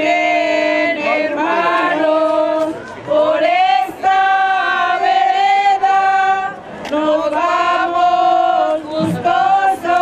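A group of women singing a devotional hymn together from song sheets, without words of speech. Long notes are held for a few seconds at a time, with brief breaths between phrases.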